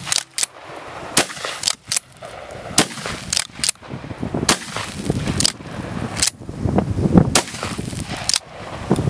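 Pump-action shotgun firing dragon's breath shells, about a dozen loud sharp shots at irregular gaps of roughly a second.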